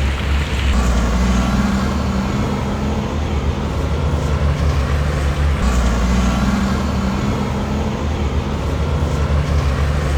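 Heavy diesel engine of earthmoving machinery running under load with a deep rumble, its pitch rising and falling twice as the engine works harder and eases off.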